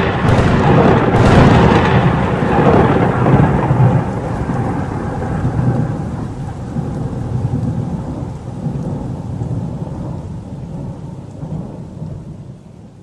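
Rolling thunder over steady rain, loudest at first and slowly fading out.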